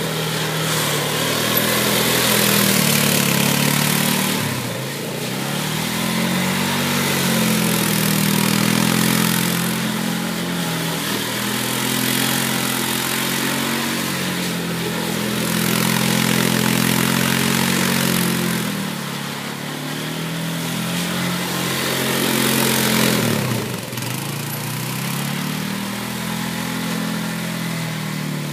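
Polaris ATV engine revving up and easing off over and over as the quad spins donuts on ice, its pitch climbing and falling about every four to five seconds.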